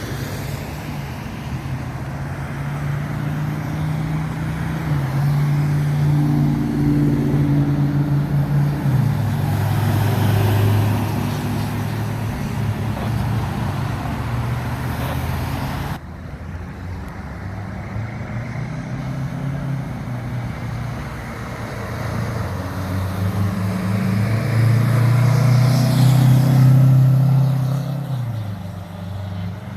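Heavy vehicle engine running, its low note stepping up and down in pitch as it revs and settles, with traffic noise around it. The sound changes abruptly about halfway through and swells again near the end.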